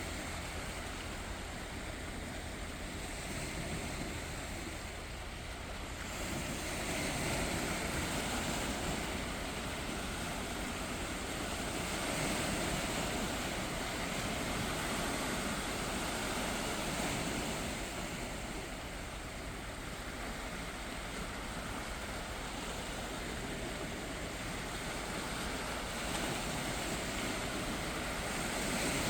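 Calm sea waves washing gently ashore, the wash swelling and easing every few seconds.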